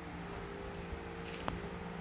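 Steady low electrical-sounding hum with two light clicks about a second and a half in.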